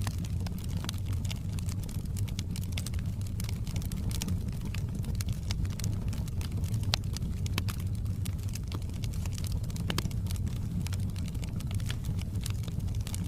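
Fire burning in a fireplace: frequent sharp crackles and pops over a steady low rumble.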